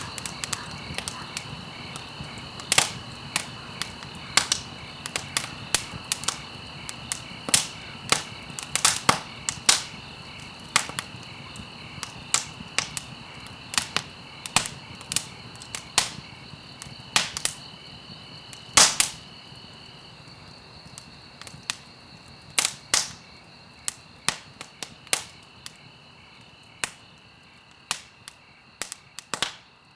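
Wood fire burning in a fireplace: sharp, irregular crackles and pops, often several a second, over a soft hiss, with a steady high-pitched tone underneath. The crackling thins out towards the end.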